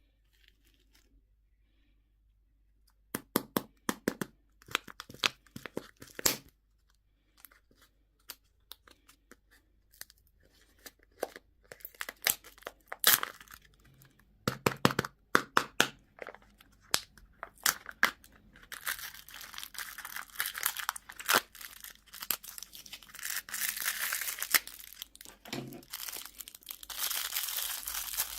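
Plastic wrapping being torn open and crinkled by hand, beginning a few seconds in as scattered sharp crackles and thickening into continuous crinkling in the last third.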